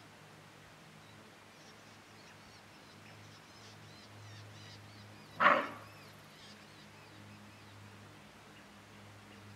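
A greater kudu cow gives a single loud, short alarm bark about halfway through.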